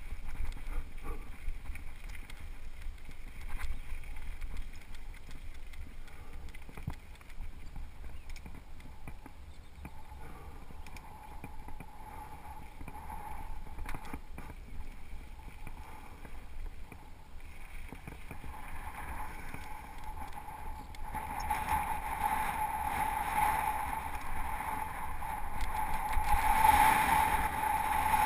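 Mountain bike rolling fast down a gravel singletrack, with wind rumbling on the camera microphone and small knocks from the tyres and bike over stones. A steady high whir builds through the middle and is loudest near the end.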